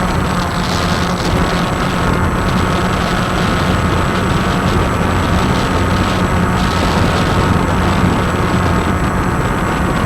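Walkera QR X350 quadcopter's electric motors and propellers whirring steadily in flight, heard close up from on board, with a low hum under a rushing noise.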